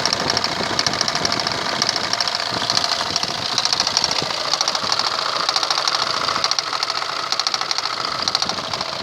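Hydraulic pump knocking over a running engine: a fast, even clatter that swells and fades in waves about every second.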